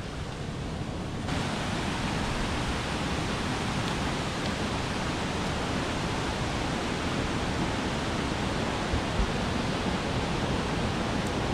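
Steady rushing of a mountain river, an even full-range hiss that starts abruptly about a second in after a quieter moment.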